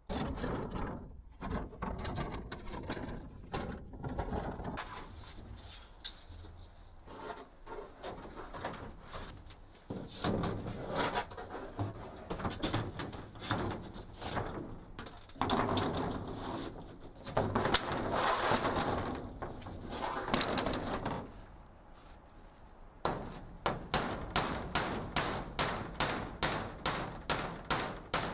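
Irregular knocks and scraping of roofing work on a wooden frame, then, for the last few seconds, a steady run of quick hammer blows, about three a second: a hammer driving roofing nails through a corrugated polycarbonate sheet into the wooden frame.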